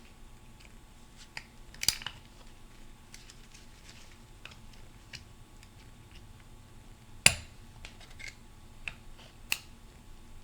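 Small hand tools clicking and tapping on metal transmission parts as a snap ring is worked off a clutch drum: scattered light clicks, with two sharper knocks about two and seven seconds in.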